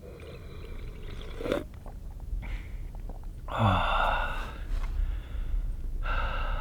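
A person sipping hot tea, with a few noisy slurps and breaths; the loudest comes about halfway through.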